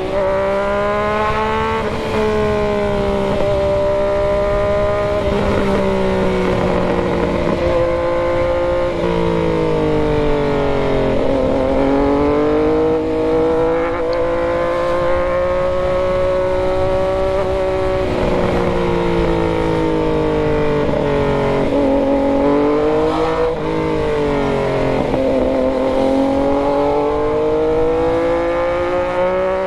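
Yamaha MT-09's three-cylinder engine riding under load. Its pitch climbs and then drops sharply every few seconds as the gears are shifted.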